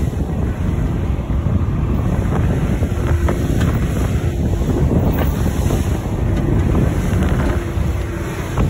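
Strong wind buffeting the microphone over the rush and splash of choppy water against the hull of a small motorboat under way in rough seas.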